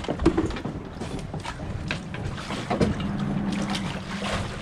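Water splashing around a landing net dipped in the water beside a boat, with scattered knocks and wind rumbling on the microphone.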